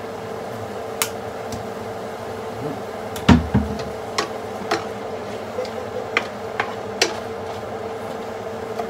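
Kitchen utensils and containers being handled: a string of sharp clicks and knocks, with one heavier thump about a third of the way in, over a steady hum.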